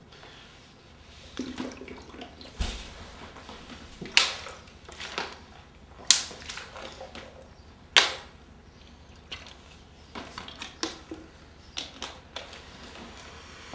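Thin plastic water bottle crinkling and crackling as it is squeezed and crushed while being drunk from: a series of sharp crackles, the loudest about four, six and eight seconds in.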